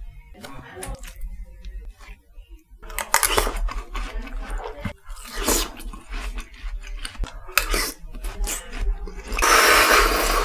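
Close-miked eating sounds: several separate bites and chews, with a few sharp clicks and a longer, denser burst of noise in the last second.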